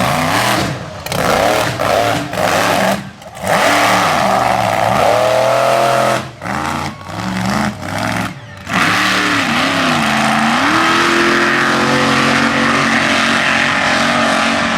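Mega truck engine revving hard in a mud bog run, its pitch repeatedly climbing and falling with several quick lifts off the throttle in the first half, then held at high revs and fairly steady.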